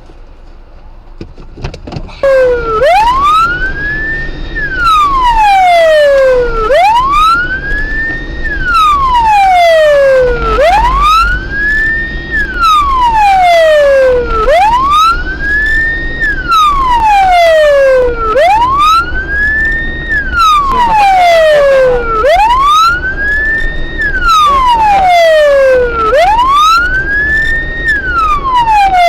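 Emergency vehicle siren in wail mode, starting abruptly about two seconds in, then sweeping slowly up and down about once every four seconds over a low rumble.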